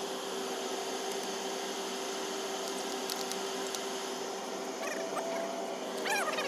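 Steady machine hum, with a dog whining briefly near the end.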